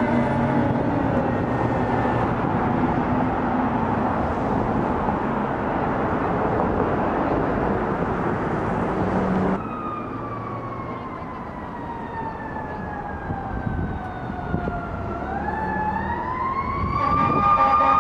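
Fire apparatus sirens on an emergency response. For the first half, a siren falls in pitch under loud engine and road noise; then the sound turns suddenly quieter and a siren wail slowly falls, rises again about three quarters of the way through and grows louder near the end.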